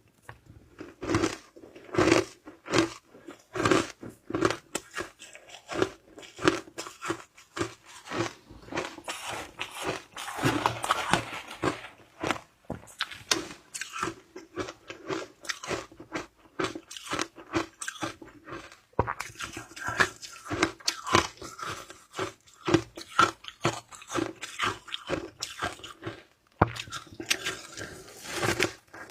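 Shaved ice being bitten and chewed: a steady run of sharp crunches, about one or two a second, with a longer grinding crunch about ten seconds in.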